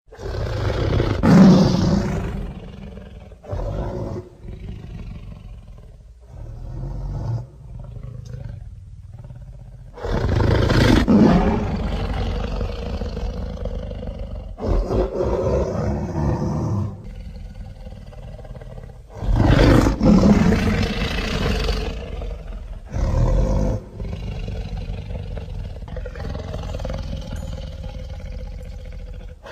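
Snow Godzilla kaiju roar sound effects: three long roars, starting about ten seconds apart, each loudest at the onset and trailing off over several seconds, with shorter growls in between.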